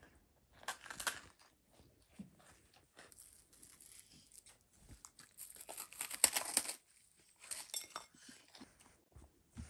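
Faint close handling noise of a s'more on a paper plate: crinkling and crunching as the graham cracker and marshmallow are pulled apart, loudest for about a second around six seconds in.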